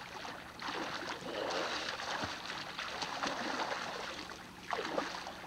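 Pool water splashing and sloshing as children move around in it.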